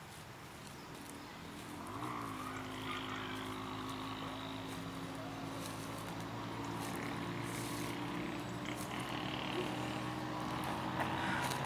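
An engine starts droning about two seconds in, wavering briefly in pitch and then holding a steady note.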